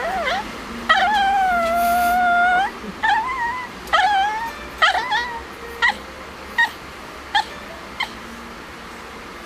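A pet animal crying in long, wavering whines, one held for nearly two seconds, followed by a run of short yelps a little under a second apart that grow fainter and stop.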